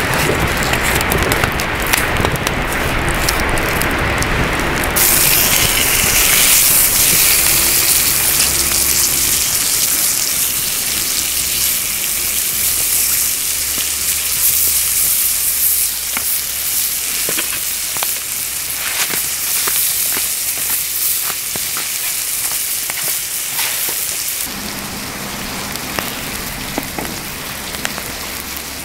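Meat sizzling on small iron griddle plates over a wood fire, the hiss rising sharply about five seconds in as the meat goes onto the hot plates. Scattered crackles and pops from the burning wood.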